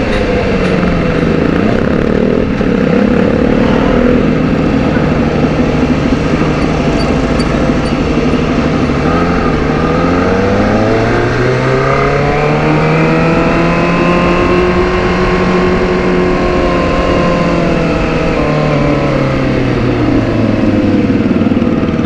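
Kawasaki ZX-25R's 249 cc inline-four running under way through an aftermarket 'prekjo' exhaust. The engine pitch climbs steadily for a few seconds around the middle, holds, then falls away near the end.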